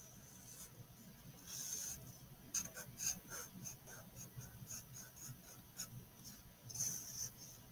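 Felt-tip marker pen scratching on paper on a wooden tabletop, faint. From about two and a half seconds in it becomes a quick run of short back-and-forth strokes, roughly three a second, as a zigzag line is drawn.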